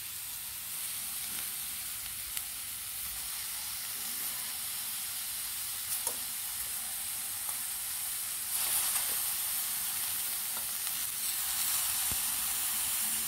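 Tomato slices and long thin kıl peppers sizzling in a frying pan, the hiss growing a little stronger about two-thirds in, with a few light clicks of a fork on the pan as the vegetables are turned.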